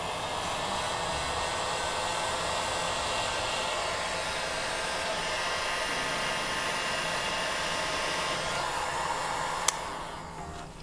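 Heat gun blowing hot air steadily onto adhesive heat-shrink tubing to shrink it over a car wiring connector. There is a sharp click near the end, then the blowing dies down.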